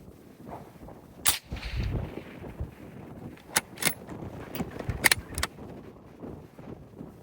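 One suppressed rifle shot from a 6.5 Creedmoor Howa 1500 bolt-action rifle with an Anthem L-2 QD suppressor, about a second in, with a short low rumble trailing after the crack. A few seconds later comes a quick series of sharp metallic clicks as the bolt is worked to chamber the next round.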